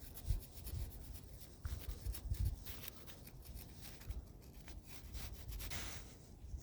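Black Sharpie marker rubbing over a freshly ground shiny spot on door hardware, as faint scratchy strokes with a few soft low knocks.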